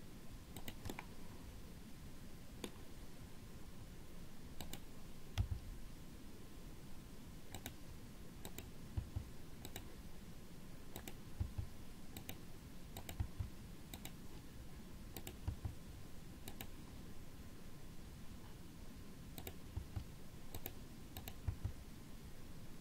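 Computer mouse and keyboard keys clicking irregularly, about one click a second, over faint steady room hiss, with a few short low thumps.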